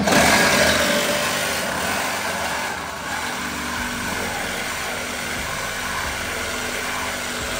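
Bladed power saw running steadily under load as it cuts through a truck's bump stops, stopping abruptly near the end.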